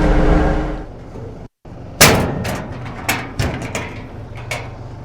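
A tractor engine running, which cuts off about a second in; after a brief break, a string of about six sharp metal clanks and knocks, the first the loudest, from hitching the tractor to the hay baler.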